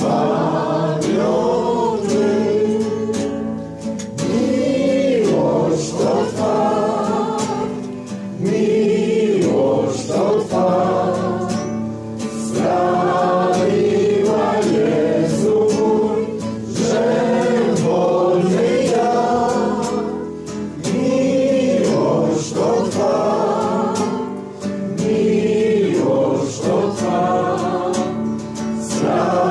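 A congregation singing a hymn together, phrase by phrase, with short dips between lines.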